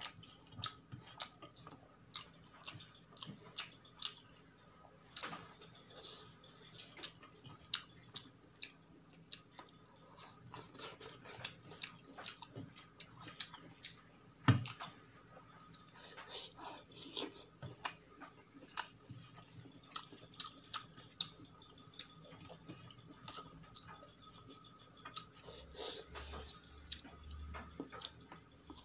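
Close-miked chewing and mouth sounds of a person eating, made of many short, irregular clicks, the loudest about halfway through.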